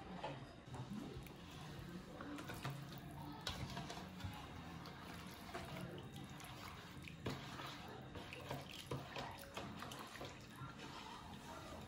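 Wooden spoon stirring a watery mixture in a stainless steel bowl: faint sloshing of liquid with scattered light knocks of the spoon against the metal.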